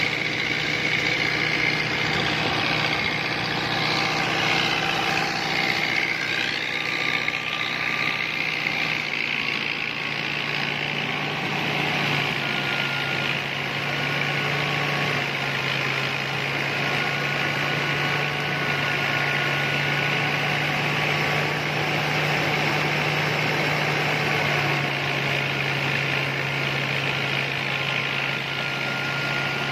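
Tractor-driven thresher running steadily under load: the New Holland 640's diesel engine and the thresher's drum and blower make a continuous mechanical drone with a low hum, as straw is blown out and grain pours into the outlet.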